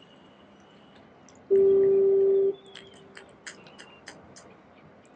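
A horn sounds once, a single steady tone about a second long that stops abruptly and trails off in a faint echo. A few light clicks follow.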